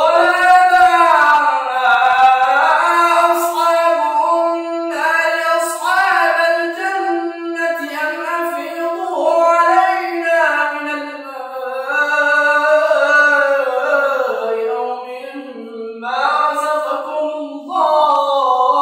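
A solo voice reciting the Quran in a melodic tajweed chant, with long held notes that waver and glide up and down in pitch.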